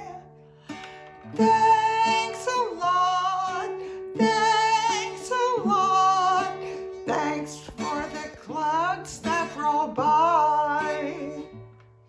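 A woman singing a slow children's thank-you song, accompanying herself on a classical guitar.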